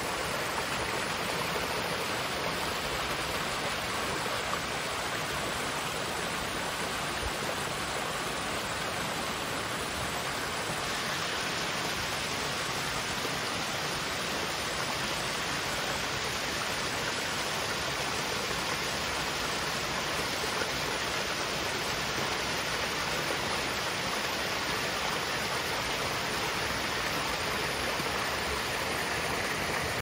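Small mountain waterfall cascading over rocks into a pool: a steady rush of falling and splashing water, turning slightly brighter about a third of the way through.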